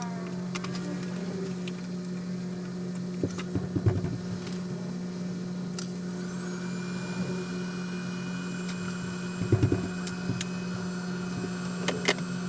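Steady machine hum with a few scattered knocks and clicks. A thin, higher steady whine joins it about halfway through.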